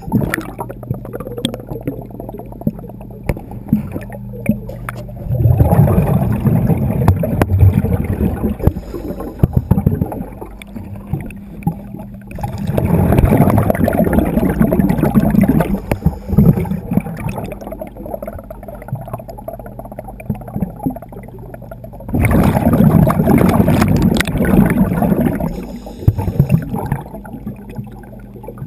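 Underwater, a scuba diver's exhaled bubbles rush and gurgle past the camera in three long bursts, a few seconds each and several seconds apart, over a steady low hum.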